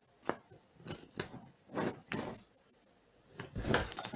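Cats pouncing on a pillow and bedding: a string of irregular rustles and soft knocks, the heaviest thump near the end as a cat crashes into the pillow.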